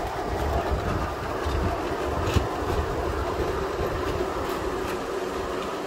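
3½-inch gauge miniature steam train running, hauled by a Lilla live-steam locomotive: a steady rumble of small wheels on the rails, with a few sharp clicks about halfway through and again later.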